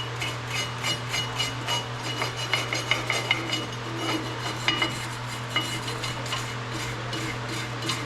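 Hand wire brush scrubbing rusty metal on a truck part, quick irregular scraping strokes about three a second with metallic clinks.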